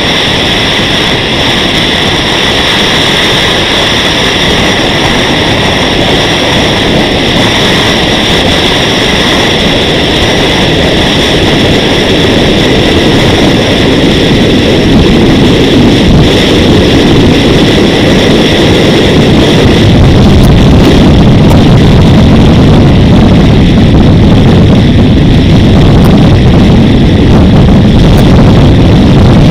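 Loud rush of wind and road noise on the microphone of an action camera mounted on a moving vehicle, with a steady high whine above it. The low rumble grows stronger from about halfway through.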